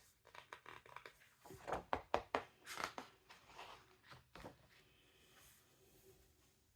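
Paper book pages being turned by hand: a run of soft rustles and flicks over the first four seconds or so, then only faint rustling.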